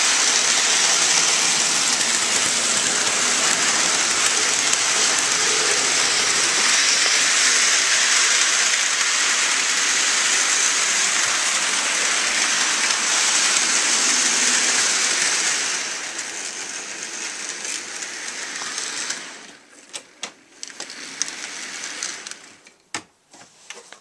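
HO scale model train running on its track: a steady rolling hiss of small metal wheels on the rails, which drops away about two-thirds through, followed by a few light clicks.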